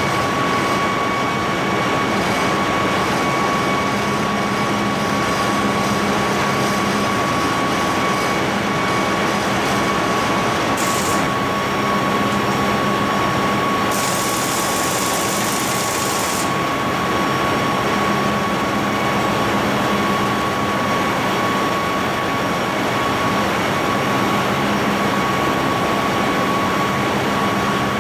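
Loud, steady machinery noise of a ship's engine room: a dense rumble with a constant thin whine over it, and an extra hiss for a couple of seconds around the middle.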